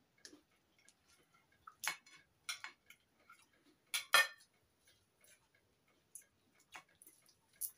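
Knife and fork clicking and scraping against china plates while eating, in scattered irregular clicks, the loudest about two and four seconds in.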